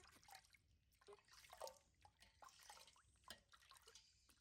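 Faint bath water dripping and splashing, with scattered small clicks.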